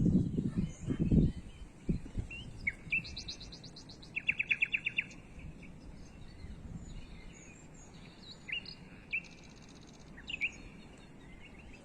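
Small songbirds chirping, with two quick trills of about eight notes each, one about four seconds in and a higher one near nine seconds, over a low rumble of wind on the microphone that is strongest in the first second.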